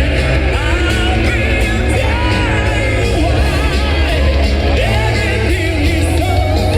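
Loud metal music with a singer's voice over heavy bass and drums.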